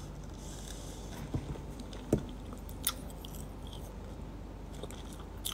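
A person biting into and chewing food close to the microphone, with a few soft, short crunches and clicks over a low steady hum.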